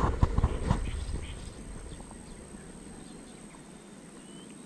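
Rustling and sharp clicks of a fishing rod and reel being handled through a cast, fading out about a second in. Then a quiet open-air background with a few faint, short high chirps near the end.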